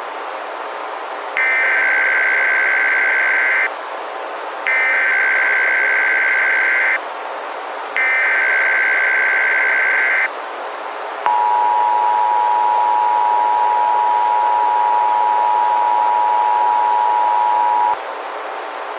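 Emergency Alert System alert tones over a steady radio-like hiss. First come three bursts of SAME header data, a warbling two-tone digital screech, each about two seconds long with a short gap between. Then comes the two-tone EAS attention signal, a steady dual-pitch alarm tone held for about six and a half seconds before cutting off.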